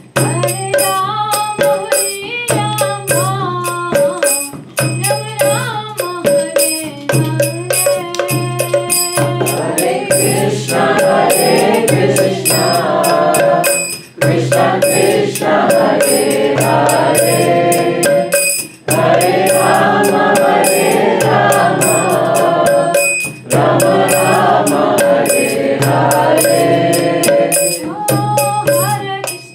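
Devotional kirtan-style chanting: one voice leads for about nine seconds, then several voices sing together in long phrases. A two-headed barrel drum beats steadily underneath, and small hand cymbals clink in time.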